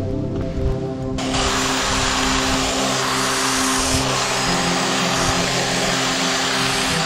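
Background music over a chainsaw running. A loud, harsh steady noise sets in suddenly about a second in, typical of the saw cutting into wood.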